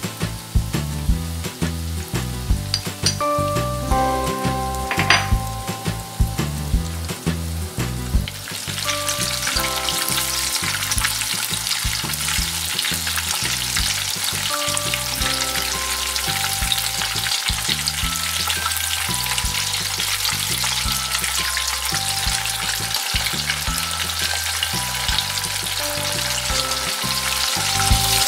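Breaded cheese sticks deep-frying in hot oil: a dense, crackling sizzle that grows much louder about eight seconds in.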